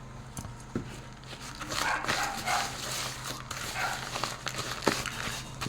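Blended ogbono paste being stirred with palm oil in a bowl, the utensil clicking against the bowl now and then. Louder bark-like sounds come through around two and four seconds in.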